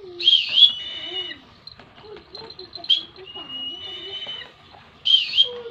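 Young eagle calling repeatedly: three sharp high calls, each running into a long, thin, drawn-out whine.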